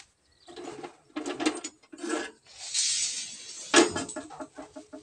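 Metallic clattering and scraping as steel rods are handled and shifted on the base of a cut-off saw that is not running: several short clanks, a brief scrape about three seconds in, then a sharp clank with a quick fading rattle.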